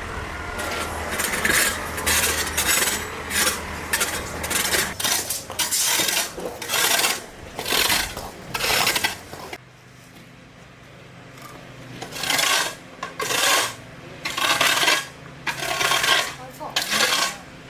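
Stones and gravel scraping and clattering in a run of short, rough strokes, about one every half second to second, with a pause of about two seconds around the middle.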